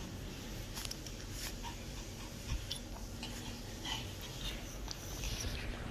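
A small Pomeranian moving about close by: scattered light clicks and rustles over a steady low hum.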